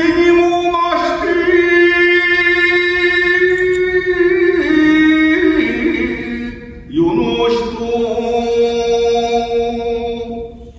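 Shigin, Japanese classical poetry chanting: a voice holds long, drawn-out notes that step up and down in pitch, in two phrases with a brief break for breath about seven seconds in.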